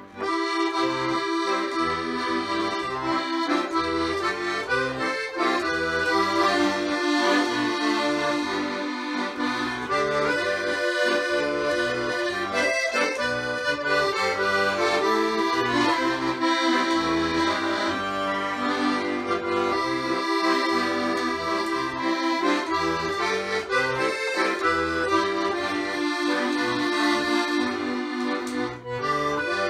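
Background music led by an accordion, playing a steady tune over a rhythmic bass line.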